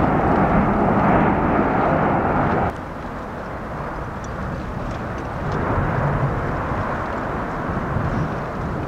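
Steady rushing roar of the Fogo volcano eruption at its active lava flows, mixed with wind. It drops abruptly a little under three seconds in and swells again about halfway through, with a few faint ticks.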